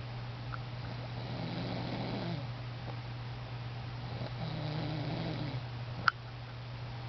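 A sleeping pet snoring, two slow rumbling breaths, over a steady low hum. A single sharp click about six seconds in.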